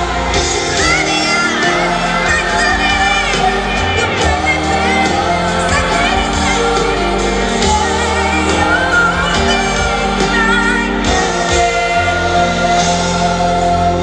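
A woman singing a slow pop ballad live into a microphone, holding long notes, over keyboard accompaniment, heard through the PA and recorded from the audience in a large hall.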